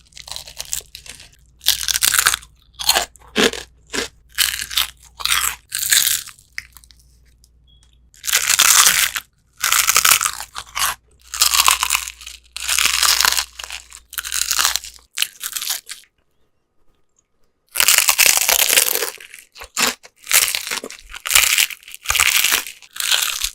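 Crispy skin of Jollibee Chickenjoy fried chicken crunching as it is bitten and chewed close to the microphone: a run of loud crunches with short breaks, and one pause of about two seconds past the middle.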